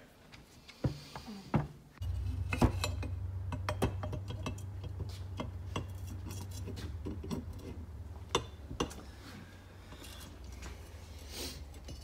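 Metal shifter parts clicking and clinking as they are handled and fitted together by hand on a workbench. A steady low hum starts about two seconds in.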